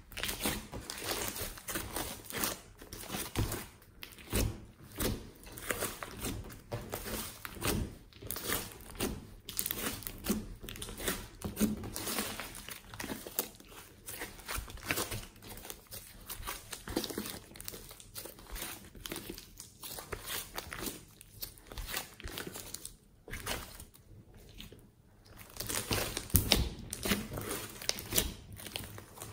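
Thick slime mixed with small foam beads being kneaded, pressed and stretched by hand, giving a continual irregular crackling and clicking, loudest near the end.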